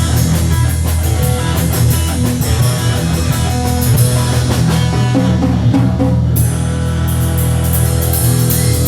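Rock band playing loud, with distorted electric guitar, bass and a drum kit. Rapid cymbal strokes carry on throughout, breaking off briefly about six seconds in.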